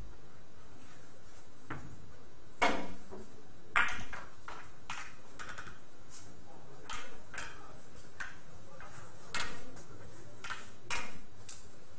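Billiard balls clicking during play on a carom table: a string of sharp ball-on-ball clicks, five of them louder, several ringing briefly.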